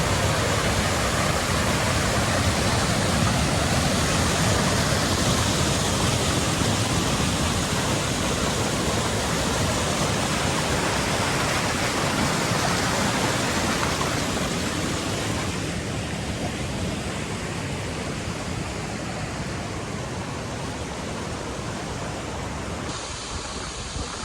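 Waterfall pouring: a loud, steady rush of falling water with no pitch or rhythm, easing a little about two-thirds of the way through.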